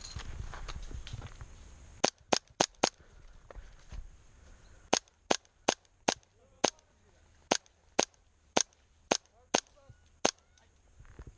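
Airsoft replica firing single shots: about fifteen sharp cracks, four in a quick string a couple of seconds in, then eleven more at roughly half-second intervals. Rustling movement noise comes before the shots.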